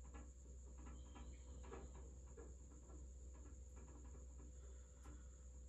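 Near silence: room tone with a faint steady electrical hum and scattered faint light ticks.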